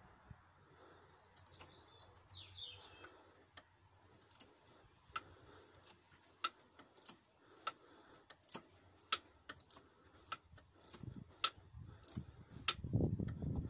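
Sharp metal clicks of a hand ratchet wrench working the exhaust manifold nuts, coming singly and in short irregular runs. A bird chirps briefly about two seconds in, and a low rumbling noise rises near the end.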